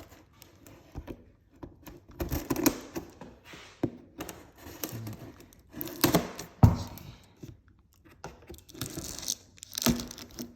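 A cardboard box being torn open: packing tape ripping and cardboard flaps rustling and scraping in irregular bursts, with a few sharp knocks.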